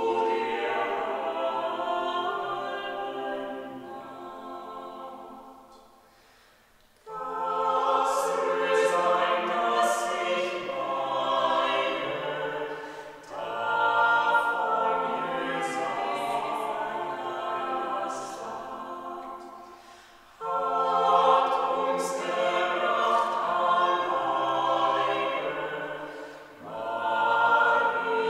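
Small vocal ensemble of soprano, alto, tenor and bass voices singing together, phrase by phrase. There are short breaks between phrases; the longest, about six seconds in, falls almost silent for a moment.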